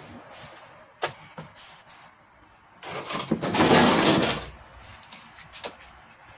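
Handling sounds from the plastic back cover of a flat-screen TV being taken off: a couple of sharp clicks about a second in, then a scraping slide about three seconds in that lasts over a second and is the loudest sound, and a few light clicks near the end.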